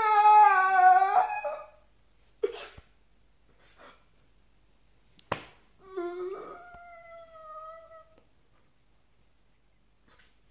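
A man's high, drawn-out wailing cry, mock weeping. It breaks off about a second and a half in, two sharp clicks follow, and a second, slowly falling wail starts about six seconds in.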